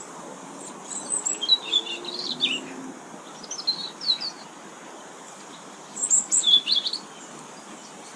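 Goldfinches twittering in three bursts of quick, high chirps, over steady outdoor background noise.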